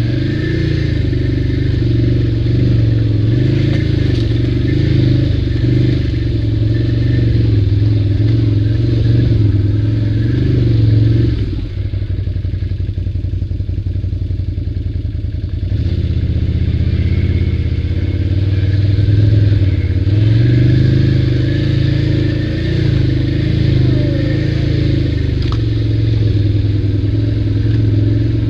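ATV engine running under throttle while riding, easing off to a lower, pulsing note for a few seconds near the middle, then picking back up with a rise in pitch.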